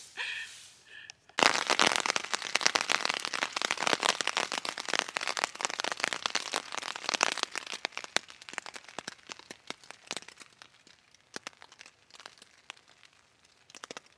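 Dense crackling and popping that starts suddenly and then thins out, ending in scattered single pops.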